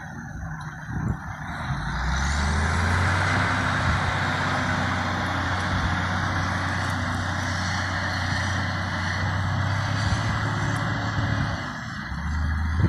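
Cat 980 wheel loader's diesel engine revving up about two seconds in and then running steadily under load, easing off briefly near the end before picking up again.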